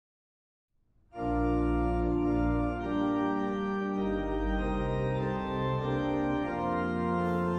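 Church organ playing slow, sustained chords, starting about a second in: the introduction to a sung psalm.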